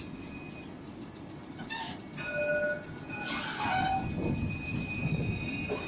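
Melbourne C-class (Alstom Citadis) tram moving past at close range: a low running rumble of motors and wheels on rail, with steady high whining tones. Short hissing bursts come about two seconds and three and a half seconds in.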